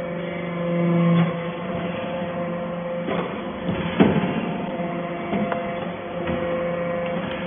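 Hydraulic power unit of a vertical scrap baler humming steadily; the hum drops about a second in, then several sharp metal knocks and clanks follow, the loudest near the middle.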